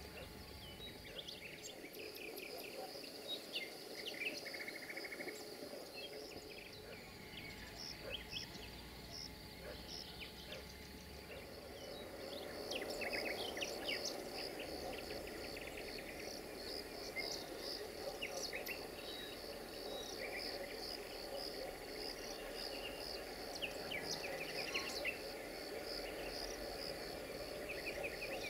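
Evening outdoor ambience: a cricket chirping in a steady, even pulse from about halfway in, over scattered short bird chirps.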